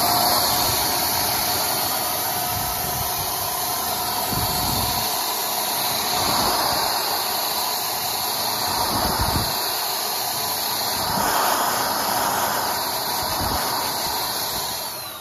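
Yattich HVLP paint sprayer running while spraying latex paint: a steady turbine-motor whine over a loud hiss of air and atomised paint. The motor winds down near the end.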